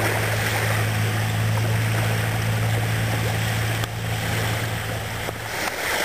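Surf washing on the shore with wind noise, under a steady low engine hum that stops near the end.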